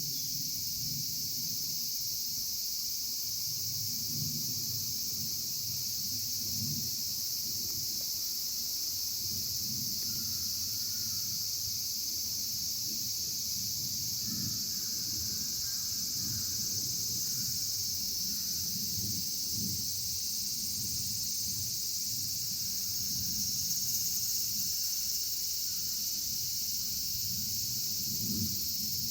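A steady, unbroken high-pitched chorus of summer insects droning, with an uneven low rumble underneath.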